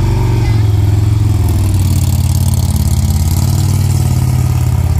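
Motorcycle engines running steadily, as a Harley-Davidson touring bike's V-twin pulls away from a standstill.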